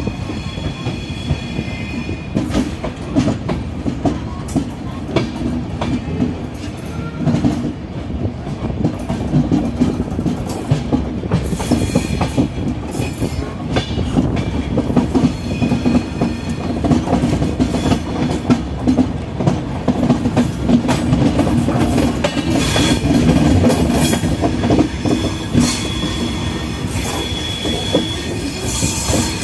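Express train coaches running at speed, heard from on board: a steady rumble with frequent clicks and knocks from the wheels on the track, and thin high squeal tones coming and going.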